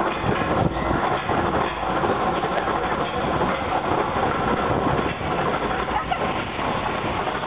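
Roller coaster train climbing its chain lift hill: a steady mechanical clatter of the lift chain with a rapid run of clicks from the anti-rollback ratchet. The coaster is an Arrow steel coaster.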